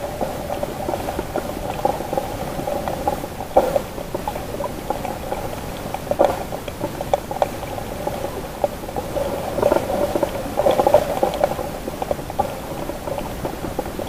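Underwater sound picked up by a camera in a waterproof housing: a muffled, steady rush of water with scattered crackles and clicks, a little busier around the middle and again a few seconds before the end.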